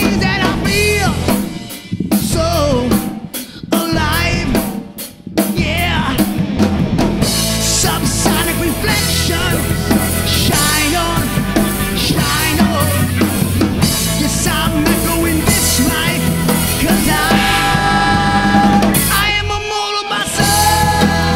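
Rock band playing live: a singer's vocals over electric guitar, bass guitar and a drum kit. The band cuts out briefly a few times in the first six seconds, punctuated by sharp hits, then plays on steadily, with one more short break near the end.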